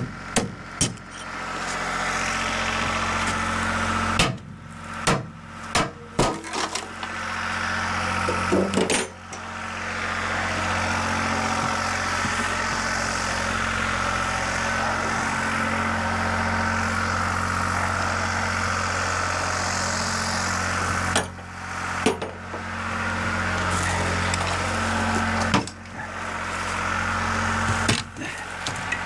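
Portable gasoline generator engine running at a steady speed, with a few sharp knocks and several short breaks in the hum.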